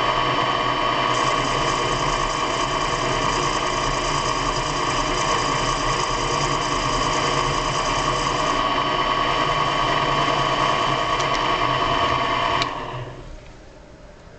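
Small machine tool's electric motor running at steady speed with a constant whine, then switched off about 13 seconds in and spinning down quickly.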